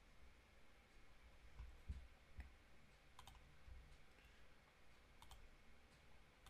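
A few faint computer mouse clicks, a pair about three seconds in and another a little over five seconds in, over near-silent room tone.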